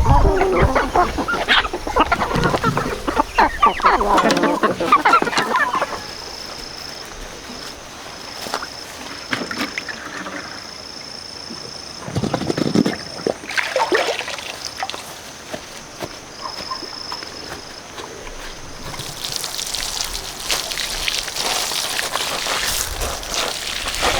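Farmyard poultry calling and clucking busily for the first several seconds, then a quieter stretch with a faint, on-and-off high-pitched tone. A steady rushing hiss comes in about three-quarters of the way through.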